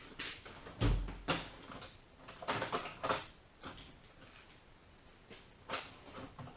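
Steel hand tools and metal parts being handled and set down on a workbench: a few separate clanks and knocks, the loudest about a second in with a dull thump.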